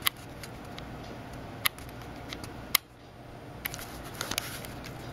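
A handful of sharp, isolated clicks over steady low room noise, the loudest click a little past the middle.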